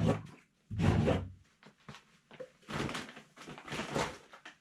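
Handling noises from the kit's parts being moved about: four separate thuds and scrapes, the one about a second in the loudest.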